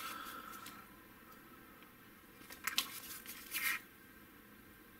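Soft rustle of a foam sleeve sliding off a clear plastic parts sprue, fading within the first second. Two brief crinkles of plastic packaging follow, a little under a second apart.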